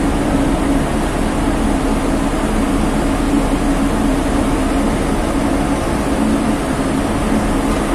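Ship's machinery running with a steady, unbroken low drone and hum.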